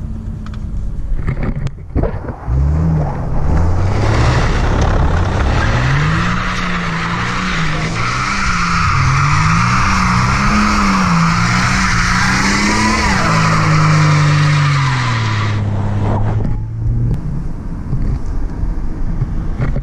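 Ford AU Falcon ute doing skids: the engine is revved hard, its pitch rising and falling again and again, while the rear tyres spin and squeal for about ten seconds before the revs drop away.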